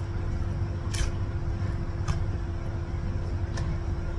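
Fingers mixing rice on a wooden plate close to a clip-on microphone: three faint clicks, over a steady low hum.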